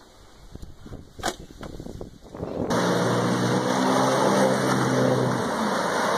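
A jet ski's engine runs steadily with water rushing and spraying around it, cutting in suddenly about three seconds in. Its engine tone fades near the end while the water noise goes on. Before that there are only faint rustles and a single sharp click.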